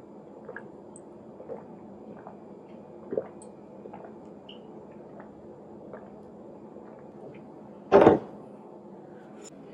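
Soft swallowing sounds while drinking from a cup, a few quiet gulps spread over several seconds, then a single loud thump about eight seconds in.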